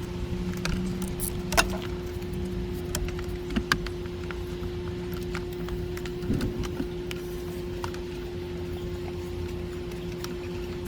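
Scattered light metallic clicks and clinks over a steady machine hum, the sharpest click about one and a half seconds in.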